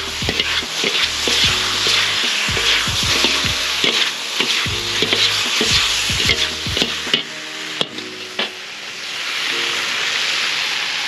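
Beef and broccoli stir-frying in a King Kooker wok: a steady sizzle with the scrape and clack of two long utensils tossing the food. The tossing eases off about seven seconds in, leaving the sizzle.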